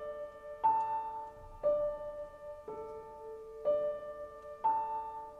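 Slow, soft piano music: single notes struck about once a second, each ringing out and fading.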